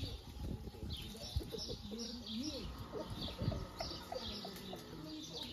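Small birds chirping over and over in short high notes, with lower wavering calls from chickens underneath.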